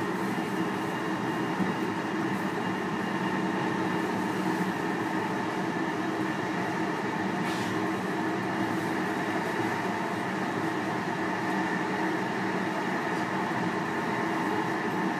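Interior running noise of a JR Hokkaido 735 series electric train cruising at steady speed: wheels rumbling on the rails, overlaid by an even hum with several held tones. A short faint hiss comes about halfway through.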